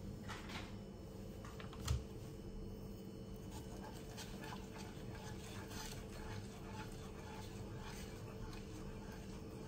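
Chopsticks stirring noodles in a small electric pot, with light clicks and scrapes against the pot's sides over a steady low hum. One louder thump about two seconds in.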